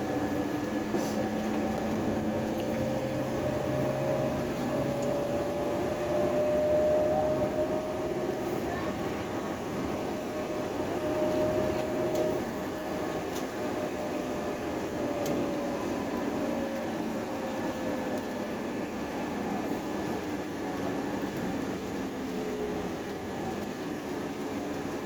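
Bus under way, heard from inside the passenger cabin: steady engine and road rumble, with a whine that rises and falls slowly as the bus speeds up and slows down.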